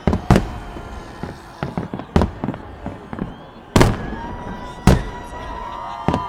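Fireworks salute bursting overhead: five sharp bangs a second or so apart, with several high whistling tones starting about four seconds in.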